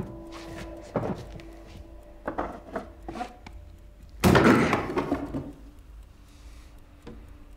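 A wooden stool knocked several times against a wooden floor, then about four seconds in a loud crash of wood as the stool breaks apart.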